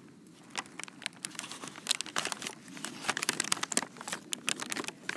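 Brown paper bag of pistachios crinkling and rustling as hands reach into it and then grip and fold its top: a dense run of sharp paper crackles that starts about half a second in.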